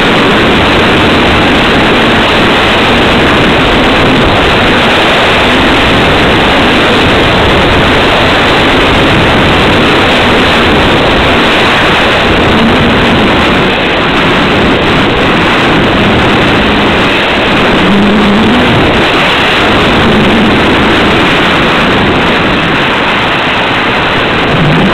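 Airflow rushing over the microphone of a camera mounted on a model glider in flight: a loud, steady rushing noise, with a few brief low hums.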